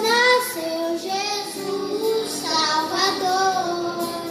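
A child's voice singing a melody in held, sliding notes, with music.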